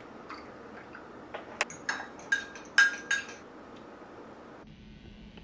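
A spoon clinking against a glass coffee mug while stirring, about six sharp clinks a little over a second in, each with a short glassy ring.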